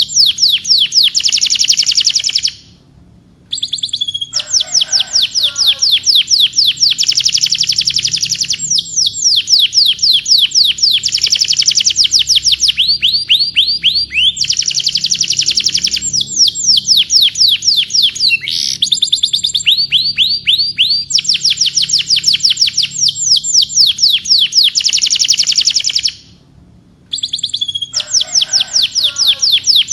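Domestic canary singing long rolling trills: fast runs of repeated high notes that shift from one phrase to the next. The song breaks off briefly twice, about three seconds in and near the end.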